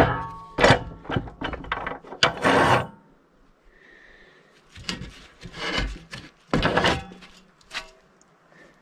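A series of irregular scrapes and knocks in two clusters, separated by a pause of about two seconds.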